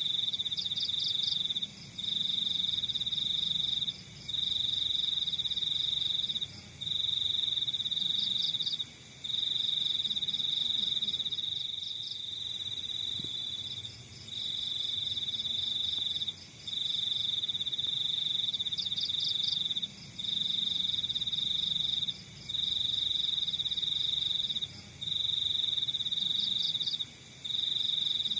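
Crickets trilling at night: one loud, high-pitched, steady trill that runs in stretches of about one and a half to two seconds with brief pauses between them, over a fainter, faster chirping from other insects.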